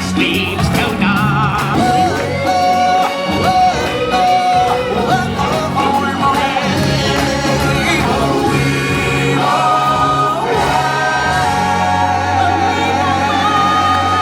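Music with several voices singing together over instrumental backing, in long held notes.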